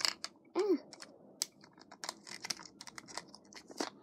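Quick, irregular small plastic clicks and crinkles as fingers pry at a plastic toy ball and pull a wrapped accessory out of it. There is a short wordless vocal sound about half a second in.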